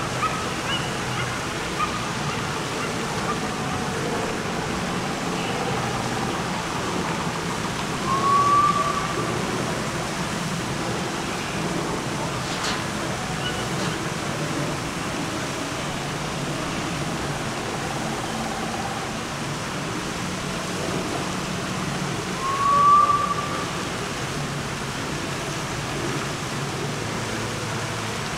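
Outdoor crowd ambience: a steady wash of background noise with faint distant voices. Twice, about fifteen seconds apart, a short rising whistle-like tone stands out as the loudest sound, and there is a single brief click near the middle.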